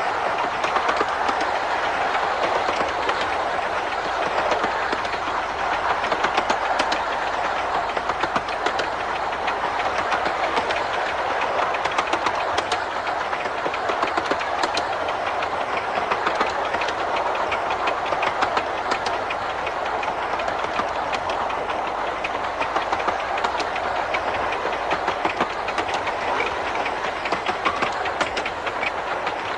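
Romney, Hythe & Dymchurch Railway No.5, a 15-inch gauge steam locomotive, running along the line: a steady rush of running noise with many quick clicks of wheels over the rail.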